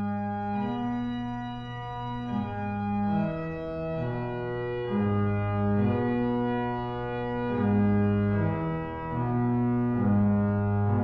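Film score of slow organ chords, each held for a second or two before moving to the next.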